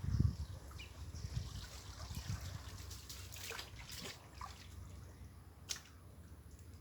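Water in a shallow pool trickling and dripping, with a few small sharp drips or splashes, the clearest near the end. A low dull rumble comes in the first half-second and is the loudest part.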